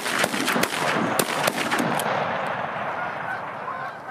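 A rapid volley of shotgun shots from several guns over the first two seconds, with voices among them, then geese honking near the end.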